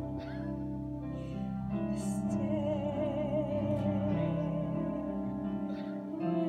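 Slow musical-theatre number from a live pit orchestra playing held chords, with a voice holding long notes with vibrato from about two seconds in; the music swells near the end.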